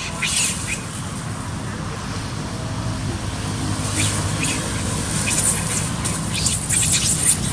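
Young macaques scuffling and chasing each other over dry leaf litter: a string of short, sharp high sounds, more frequent in the second half, over a steady low rumble.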